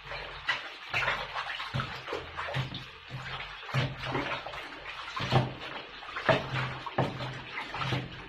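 Water running and splashing in a kitchen sink as things are washed by hand, with irregular splashes and knocks.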